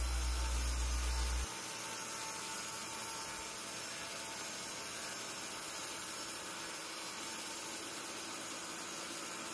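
Portable table saw running steadily while a board is ripped, heard faintly as an even, hissing noise. A low hum stops about a second and a half in.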